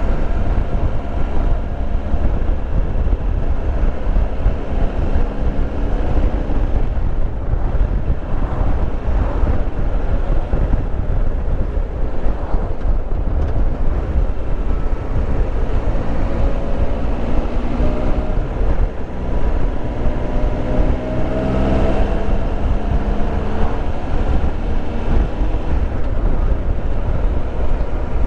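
Triumph Tiger Explorer 1200's three-cylinder engine running at road speed under heavy wind noise on the microphone, its note climbing in pitch as the bike accelerates in the second half.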